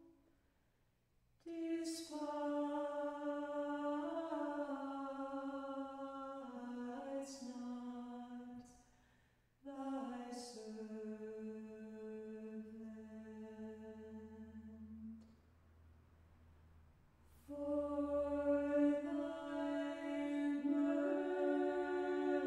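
Orthodox church choir singing a cappella, a hymn set to a melody adapted from a Bulgarian folk tune. It comes in long sung phrases with short breaks between them and sharp 's' consonants, and a quiet stretch before it swells back in fuller about two-thirds of the way through.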